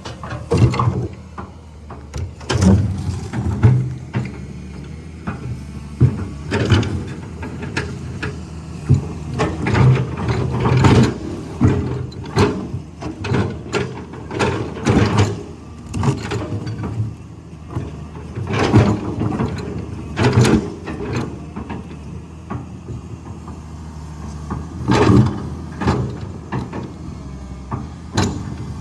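Caterpillar 320 excavator's diesel engine running steadily under many irregular clanks and scrapes of the bucket and arm working through rock.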